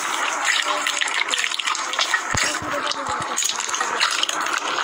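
Hands squeezing and kneading a bowl of slime: wet squishing, full of small crackles and pops.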